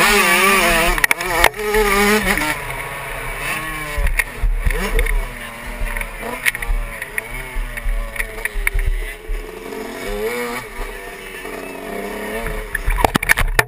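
Two-stroke engine of an 85cc Suzuki motocross bike under hard riding, its revs climbing and dropping again and again with throttle and gear changes, heard close up with hiss over it and a few sharp knocks.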